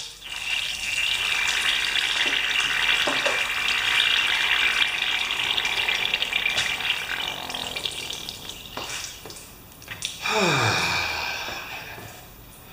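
Compressed air and water hissing and spraying out of the open valve on an electric twin-tank wheelbarrow air compressor as it builds pressure, spilling water onto the floor. The hiss runs for about eight seconds, then a shorter burst comes about ten seconds in with a tone that drops steeply in pitch.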